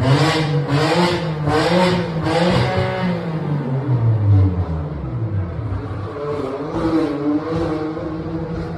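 BMW M4's twin-turbo straight-six revving in quick blips, about two a second, for the first two or three seconds. The engine note then falls away and settles to a lower, steady running note with a few small rises.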